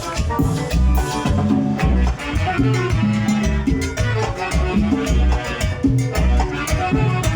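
Live tropical dance orchestra playing an up-tempo Latin number, with bass notes, percussion and maracas in a steady rhythm.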